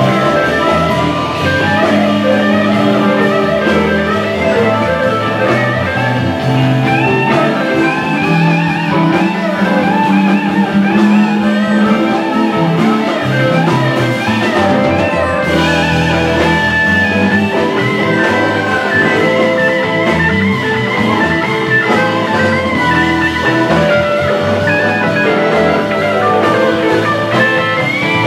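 Live blues band playing, with electric guitars and an amplified harmonica played through a vocal microphone.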